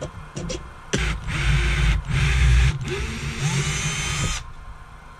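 Cordless drill boring out a hole in a 3D-printed plastic part clamped in a bench vise, its motor whine rising and falling for about three and a half seconds before it stops suddenly. A few light clicks of handling come just before the drill starts.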